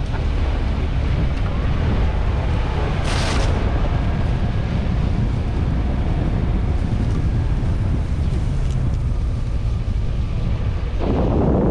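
Suzuki Grand Vitara driving off-road: a steady low rumble of engine and drivetrain, with wind buffeting the microphone. There is a short hiss about three seconds in, and the noise grows louder just before the end.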